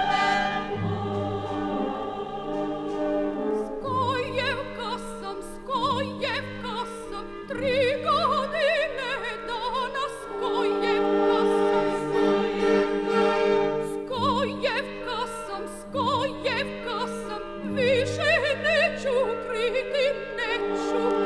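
Symphony orchestra playing a passage of a Partisan song arrangement with no words sung. Sustained chords hold underneath while, from about four seconds in, a melody line with wide vibrato rises and falls above them in phrases.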